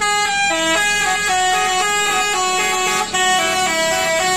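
Tour bus's multi-note 'telolet' musical horn playing a quick tune, held notes stepping up and down in pitch two or three times a second.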